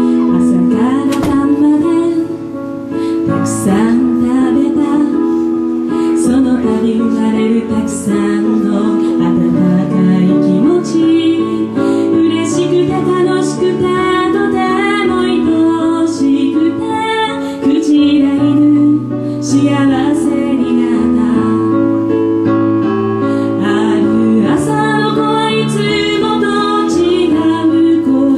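A woman singing a song while accompanying herself on an electric keyboard, her voice carried over the mic with the keyboard chords underneath.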